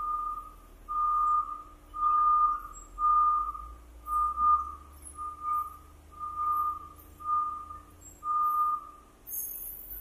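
Reversing alarm beeping at one steady pitch, about one beep a second, nine beeps that stop near the end, over a low steady machine rumble.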